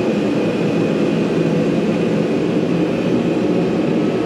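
A steady, loud mechanical drone that holds an even level throughout, with a faint high steady tone over it.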